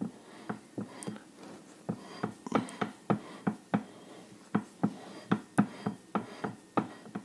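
A steady run of short, sharp ticks or taps, about three a second.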